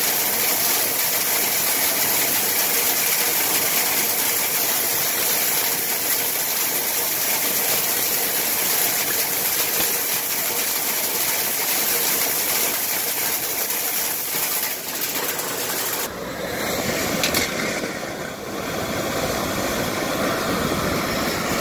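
Compressed-air agitator whip spinning inside a sheet-metal air duct: a loud, steady rush of escaping air. About 16 seconds in the high hiss drops away and a lower rumble takes over.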